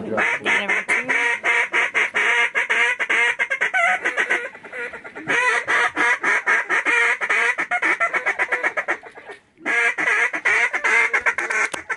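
Dense, rapid quacking and honking of duck and goose calls, pausing briefly about four and a half seconds in and again just before ten seconds.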